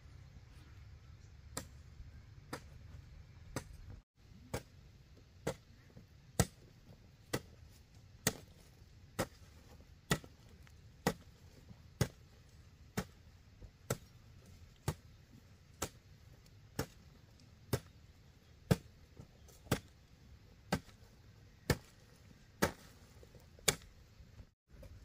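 Repeated chopping strikes of a tool, evenly spaced at about one a second, some two dozen in all.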